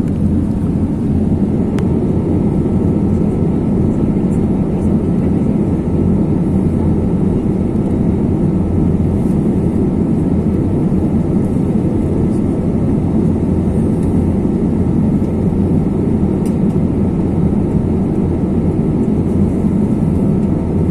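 Airliner cabin noise at cruise: a loud, steady low rumble of jet engine and airflow noise with a faint steady whine above it.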